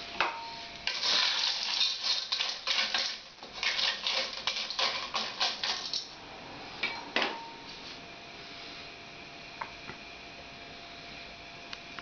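Periwinkles in their shells clattering against a stainless steel pot as they are stirred with a wooden spoon: a dense rattling for about five seconds, then a few single knocks.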